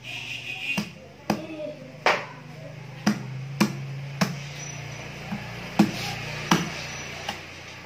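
Cleaver chopping into a catfish head on a thick wooden chopping block: about ten sharp chops at an uneven pace.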